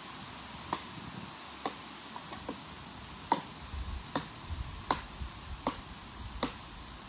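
A series of sharp, short knocks at an uneven pace, about a dozen in all, over a faint steady hiss.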